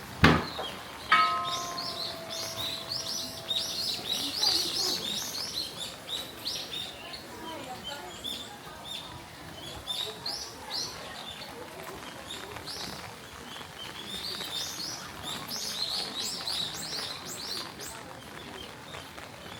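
Many small birds chirping in quick, repeated high notes. A sharp knock comes just after the start, and about a second in a small struck bell rings and fades out over a couple of seconds.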